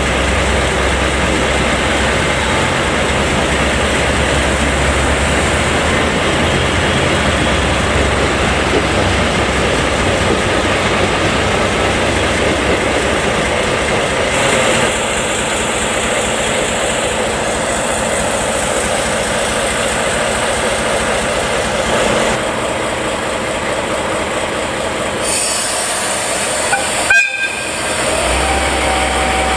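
DE10 diesel-hydraulic locomotive's V12 engine idling close by, a loud steady rumble, with a diesel railcar running out on the next track. The sound breaks off suddenly near the end and picks up again as the low hum of the idling locomotive.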